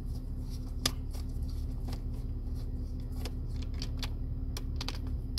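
Phillips screwdriver turning a screw out of the cup-holder trim in a BMW E39 centre console: a string of small, faint clicks and ticks, with one sharper click about a second in, over a steady low hum.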